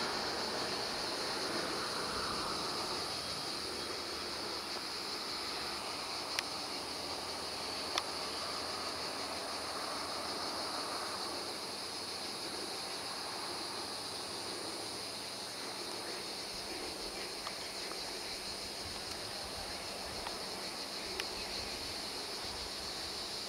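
Steady, high-pitched insect chorus droning without a break. Beneath it is a broad rushing noise that fades over the first half, with two faint clicks.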